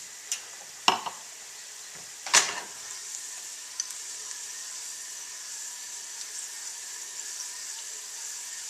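Minced garlic sizzling gently in olive oil in a nonstick frying pan, a steady hiss as the pan is shaken to move the garlic around. Two sharp knocks stand out, about a second in and again about two and a half seconds in.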